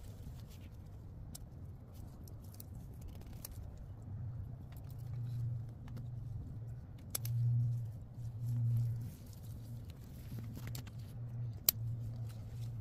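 Scattered light clicks and rustles of hands handling tomato plants and fruit, over a low, uneven hum that swells twice, about seven and nine seconds in.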